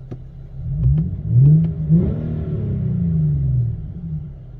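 Infiniti G37's 3.7-litre V6 with its mufflers deleted, revved twice from idle: a short blip about a second in, then a longer rev that rises and falls back to idle. Not too loud.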